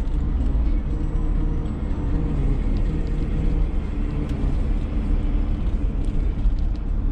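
Steady low rumble of engine and road noise inside a moving van's cabin, with a few faint clicks.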